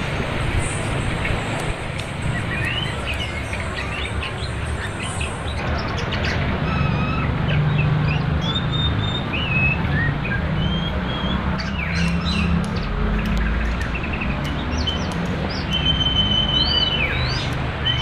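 Songbirds singing a run of clear whistled phrases and chirps over the steady rush of flowing river water.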